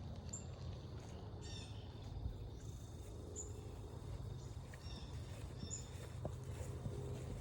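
Wild birds chirping: short high chirps every couple of seconds and a quick run of notes about a second and a half in, over a steady low outdoor rumble, with a couple of light clicks near the end.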